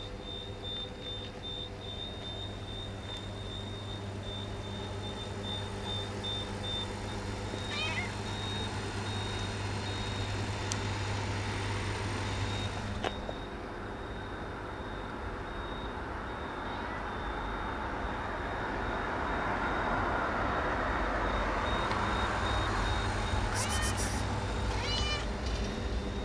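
Stray cat meowing: once about a third of the way in and two or three times near the end. Underneath is a steady engine hum and street traffic, which grows louder in the second half.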